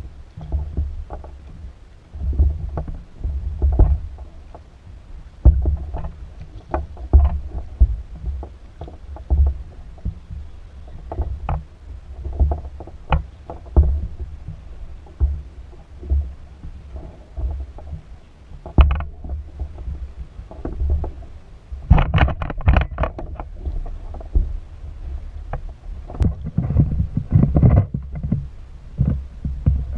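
Water slapping and knocking against a plastic fishing kayak's hull, heard on the boat's own camera mount as an uneven run of low thumps and rumble with scattered sharp knocks. The splashing grows busier near the end.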